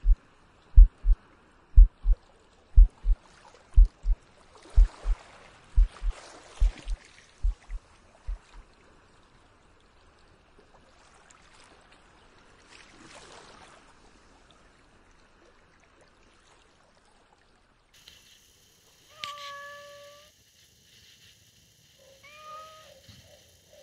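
Paired low thumps like a heartbeat, about one pair a second, fade out about eight seconds in. Later, over a steady hiss, a cat meows twice.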